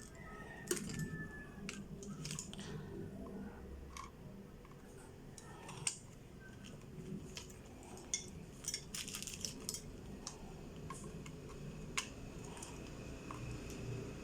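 Scattered small clicks and taps of hands handling a digital clamp meter and its test leads, the sharpest about six and twelve seconds in.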